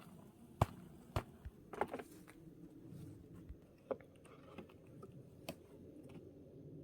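Wooden hive parts being handled: a handful of sharp knocks and clicks, scattered irregularly, over a low steady hum.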